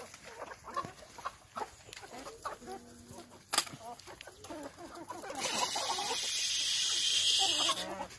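A flock of desi chickens clucking and chattering as they feed, with a sharp click about three and a half seconds in. From about five and a half seconds in, a loud steady hiss lasting over two seconds sits over the clucking.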